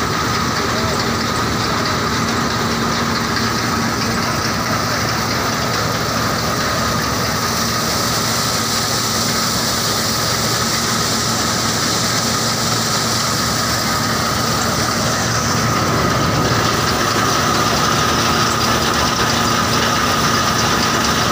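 Belt-driven threshing machine running at a steady speed, its pulleys, V-belts and drum turning, with a constant high hum over the machinery noise.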